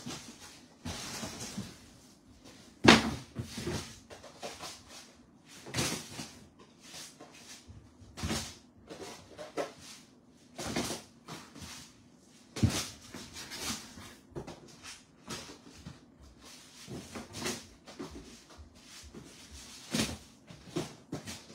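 Irregular knocks, bumps and rustling as packages and goods are handled and set down while unpacking shipping boxes, with the sharpest knock about three seconds in.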